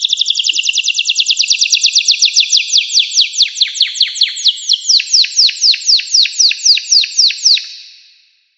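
Domestic canary singing one long trill of quick, high, downward-sweeping notes that slows from about twelve notes a second to about four before it stops near the end.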